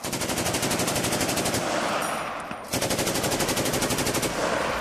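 M240 7.62 mm machine gun firing two long bursts of fully automatic fire, each about a second and a half long, with a short pause between them. The shots come in a fast, even rattle.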